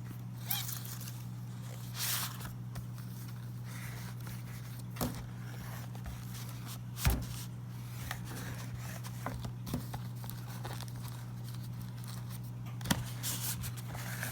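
Cardboard watch box being handled and opened: scattered short scrapes, rustles and knocks, the loudest a knock about seven seconds in, over a steady low hum.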